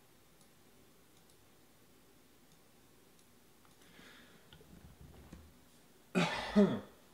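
A person clearing their throat near the end: two quick, loud voiced pulses with falling pitch, after several seconds of quiet room tone with a few faint ticks.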